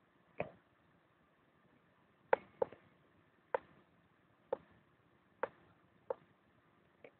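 Eight sharp knocks at irregular intervals, roughly one a second, with two in quick succession about two seconds in and a fainter one near the end, over a faint background.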